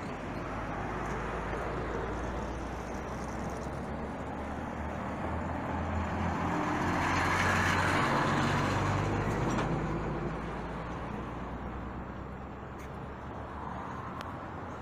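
Road traffic going by steadily, with one vehicle's engine swelling as it passes close about halfway through, then fading away.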